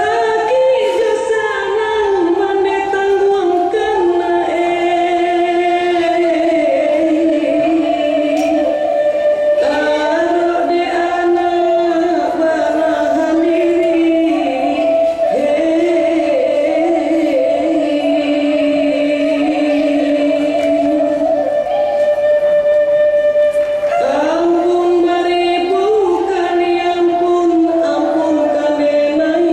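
Music with singing: long held notes that slide slowly between pitches, two lines sounding at once.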